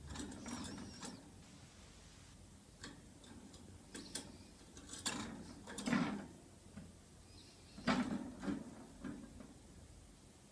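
Irregular clicks and taps, as of canaries moving about a cage, with a faint short high chirp near the start.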